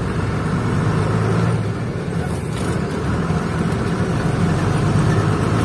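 Truck engine running steadily with road noise while driving, heard from inside the cab.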